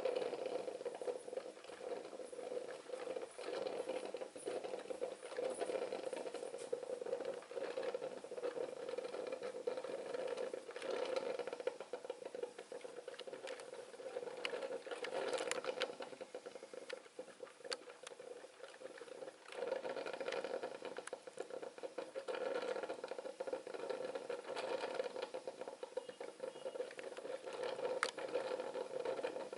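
Pigeon filter coffee maker brewing: hot water sputtering and gurgling through the machine with a steady, irregular crackle of small clicks.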